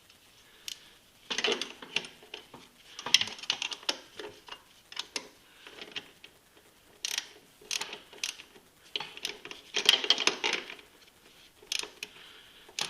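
Ratchet wrench clicking in short runs of back-strokes, with pauses between them, as the chain-case adjuster lock nut on a snowmobile is tightened.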